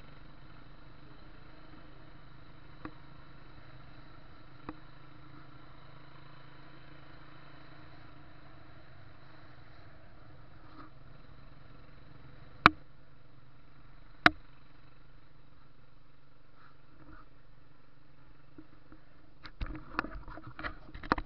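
Habal-habal motorcycle taxi running steadily under a pillion passenger, a low even hum. Two sharp clicks come past the middle, and a quick clatter of knocks and handling noise comes near the end.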